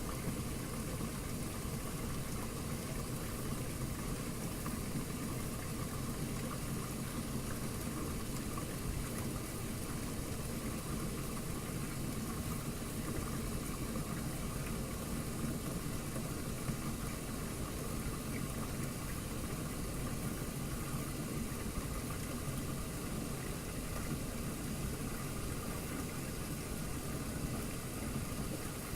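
Washing machine running: a steady, unchanging mechanical hum and rumble.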